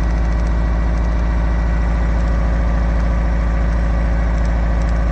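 1985 Toyota MR2's four-cylinder engine idling steadily and not running smoothly, misfiring on one cylinder. That cylinder's spark plug wire is off and the idle doesn't drop, because that cylinder isn't firing anyway, even though its wire gives a strong spark.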